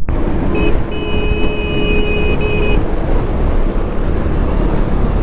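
Wind and road noise of a motorcycle ride at highway speed on a helmet-mounted action camera, with a vehicle horn sounding about half a second in, briefly broken, then held for about two seconds.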